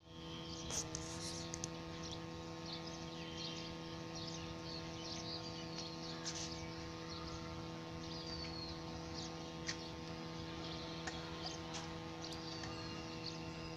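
A steady electrical hum holding one pitch with its overtones, with scattered short high chirps and a few brief falling whistles over it.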